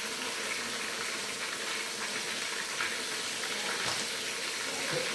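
Chopped onions and tomatoes sizzling in hot cooking oil in a pan: a steady hiss with a few faint ticks.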